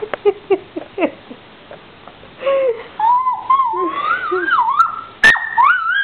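Jack Russell terrier whining for food, a high wavering whine that rises and falls, with one sharp yip near the end. He is begging for the meat on the grill.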